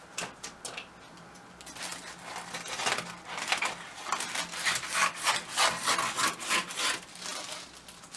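Crepe paper being handled, a run of scratchy rubbing and rustling strokes after a few light clicks.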